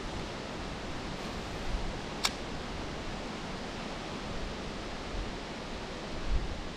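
Steady rushing of flowing creek water, with one sharp click about two seconds in.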